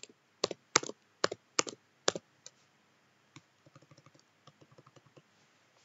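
Computer keyboard keystrokes as a line of code is copied and pasted over and over: about six sharp key presses in the first two seconds, then a run of fainter, quicker clicks.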